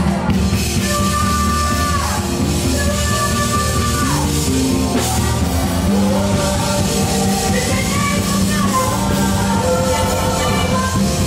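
Live worship band music, loud and steady: a drum kit with cymbals driving the beat under voices singing held and sliding melodic lines.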